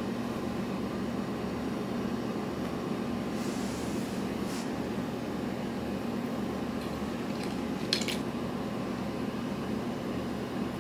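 Steady low indoor hum, like a fan or air conditioning, with a faint brief rustle about eight seconds in.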